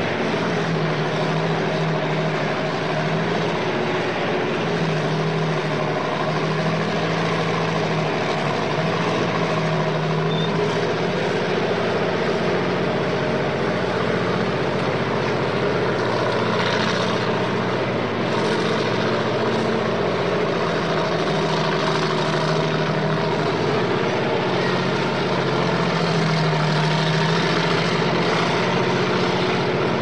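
Snowplow truck's engine running steadily under a constant wash of noise, its low hum wavering up and down in pitch now and then.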